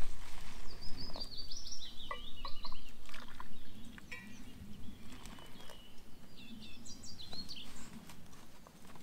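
Small songbirds singing and chirping in a forest, with a brief rush of noise near the start. A few light clicks come from a steel vacuum flask and cup being handled.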